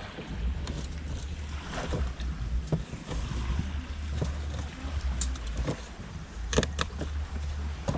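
Scattered taps of a knife and hands on a wooden cutting board while fish is prepared, with a few sharper knife strikes close together near the end, over a steady low rumble of wind and surf.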